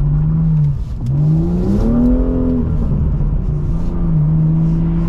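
BMW M2's turbocharged straight-six with a modified exhaust, heard from inside the cabin, accelerating and shifting up twice: the engine note breaks just before a second in, climbs, drops at a second shift about two and a half seconds in, then settles to a steady cruise.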